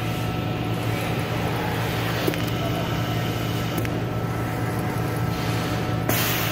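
CMC die cut feeder running with a steady mechanical hum and several held tones, with a couple of faint clicks. Near the end comes a short burst of air hiss from its pneumatic pick head.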